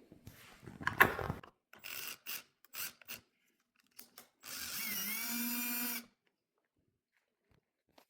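Power drill run in several short bursts, then one longer run of about a second and a half whose pitch dips briefly as the bit bites, enlarging a hole in wood.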